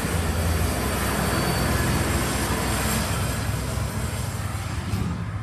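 A heavy military truck driving past, its engine rumble and tyre noise loud and steady, easing off near the end.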